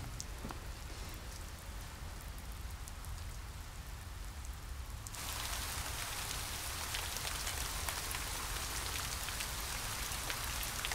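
Steady rain falling and dripping from the edge of a thatched roof, with scattered drop ticks. It steps up suddenly to a louder, fuller rain about five seconds in.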